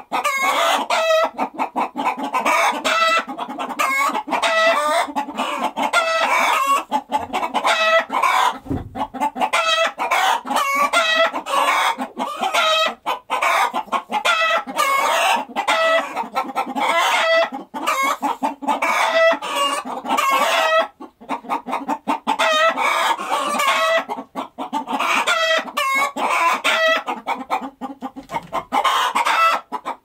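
A flock of chickens clucking, with many short overlapping calls following one another without a break.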